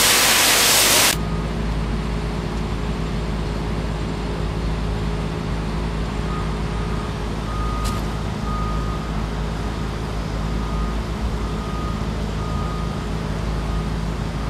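A loud, steady hiss of the burning leak and hose spray cuts off about a second in. A steady low rumble of idling fire-engine diesels and plant machinery follows, with a faint intermittent beeping in the middle.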